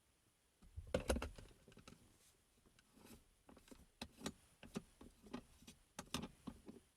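Handling noise: a quick cluster of clicks and knocks about a second in, then scattered single clicks and taps, typical of a plastic lid or container being opened and moved.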